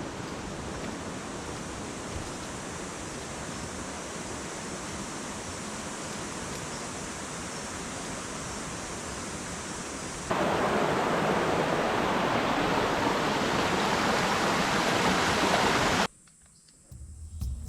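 Steady rush of running water. It jumps abruptly to a louder, closer level about ten seconds in, then cuts off about six seconds later.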